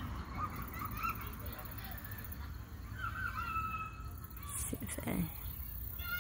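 Distant children shouting and squealing on a playground: a few short, high calls a couple of seconds apart, over a steady low rumble.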